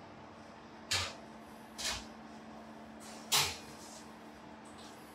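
Metal baking tray knocking as it is lifted out of an oven and set down on a gas hob's cast-iron grates: three short sharp knocks about a second apart, the last one loudest, over a steady low hum.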